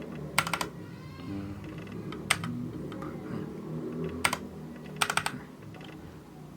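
Keystrokes on a Keychron K6 mechanical keyboard with red linear switches. About ten sharp clicks come in short groups: a few near the start, one after about two seconds, two after about four seconds and a quick run of about four near five seconds. The keys are typing in a number code to pair the keyboard over Bluetooth.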